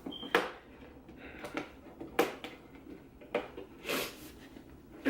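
Hair dryer packaging being pulled and worked at by hand: scattered sharp clicks, crackles and a longer scrape about four seconds in, as the packaging resists opening.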